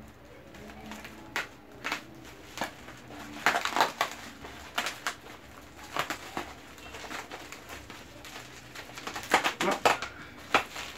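Bubble wrap crinkling and crackling as it is cut open with scissors and pulled off a cardboard box, in uneven crackles that are loudest about four seconds in and again near the end.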